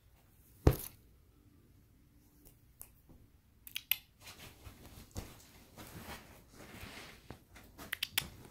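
A sharp click about a second in, then a comforter rustling and crinkling with small clicks from about halfway, growing busier toward the end as a Great Dane shifts and gets to its feet on the bed.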